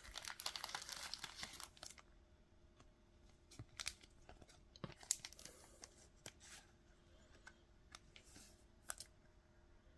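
Trading cards being handled, with dense crinkling and rustling for about two seconds, then scattered faint taps and crinkles.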